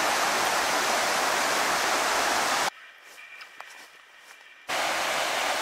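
Rushing, splashing river water, loud and steady. About two and a half seconds in it cuts off abruptly to a much quieter two-second stretch with a few faint clicks, then the rushing water returns just as abruptly.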